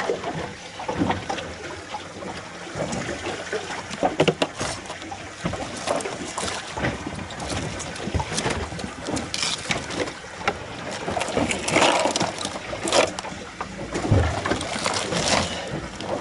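Irregular knocks, clicks and rustles of hands and a fillet knife handling gear and fish in a plastic cooler, with water sounds from the boat in the background.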